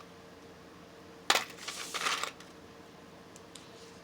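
Paper being handled and folded: a sharp tap about a second in, then about a second of crisp rustling.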